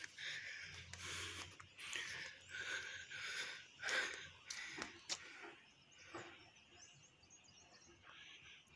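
Footsteps crunching on a loose gravel road, about two steps a second, stopping about two-thirds of the way through. Faint bird chirps follow near the end.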